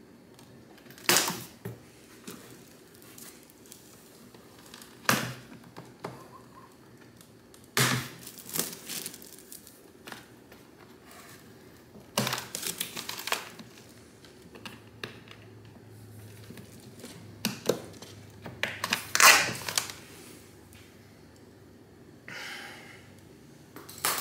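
Cardboard box and packaging being cut open and handled: scattered bursts of crinkling, tearing and rustling with a few knocks, several seconds apart.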